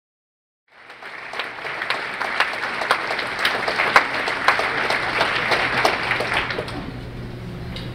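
Banquet audience applauding: the clapping starts about a second in, holds steady, and dies down near the end.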